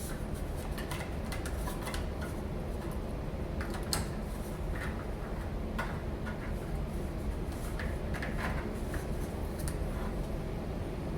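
Scattered light clicks and taps of smart-lock hardware being handled and fitted into the door, over a steady low hum.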